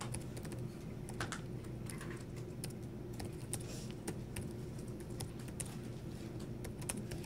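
Irregular light clicks of typing on a computer keyboard, over a steady low hum.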